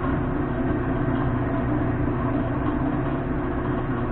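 Monarch engine lathe's motor and drive running with a steady mechanical hum made of several constant low tones.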